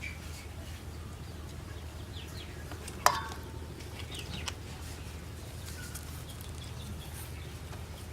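Birds chirping faintly in short calls over a steady low hum, with one sharp, ringing clink about three seconds in, like a utensil striking a pot or dish.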